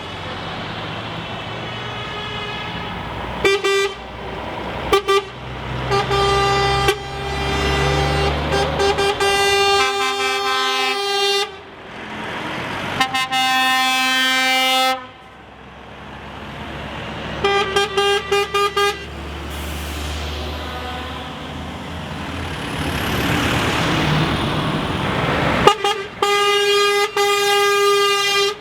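Convoy trucks driving past and sounding their air horns: horns of different pitches blast again and again, some held for a second or two, with a run of quick short toots partway through. Low diesel engine rumble runs underneath, and a truck swells up loud and fades as it passes close.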